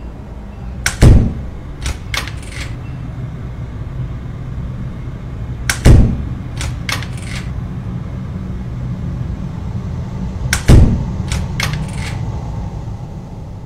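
Three bursts of banging at a door, each a heavy thud followed by about three lighter clicks, over a steady low hum.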